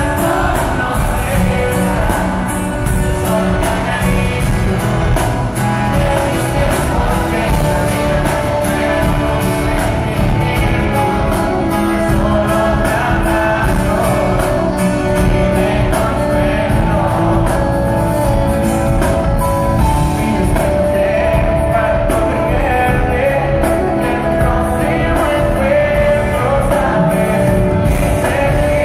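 Pop band playing live, a lead singer singing over guitars, bass and drums, heard from the arena crowd.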